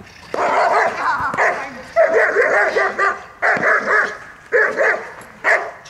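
German Shepherd barking and yelping in a string of rapid, excited bursts while held back on the leash during protection bite work.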